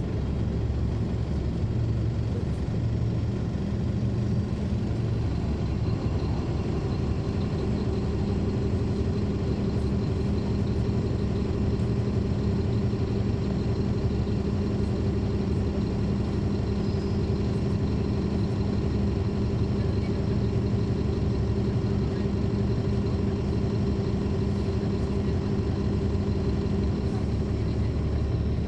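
Caterpillar C13 diesel engine of a NABI 40-foot transit bus, heard from the rear seats inside the bus, running steadily with a low rumble under a steady hum. A second, higher engine tone comes in about six seconds in and holds.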